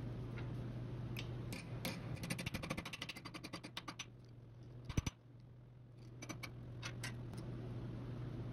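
Hammer striking a small metal strip clamped in a bench vise to bend its end over to a right angle: a rapid run of light taps, then one hard blow about five seconds in, followed by a few lighter metal clicks. A steady low hum runs underneath.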